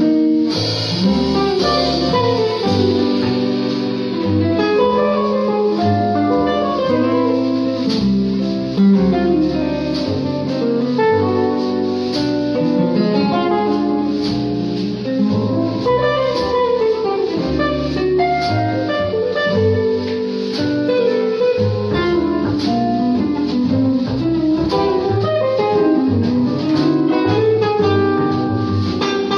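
Small live jazz band: a hollow-body jazz guitar plays a solo of flowing single-note runs over plucked upright bass and light drums, with the flute silent.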